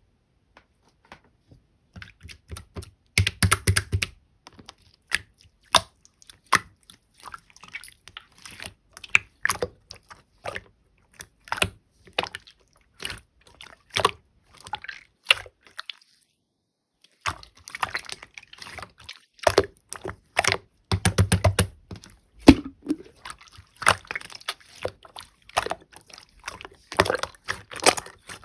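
Slime being squished and worked by hand: a stream of small wet clicks and pops, with two quick runs of dense crackling, about three seconds in and about twenty-one seconds in, and a short pause near the middle.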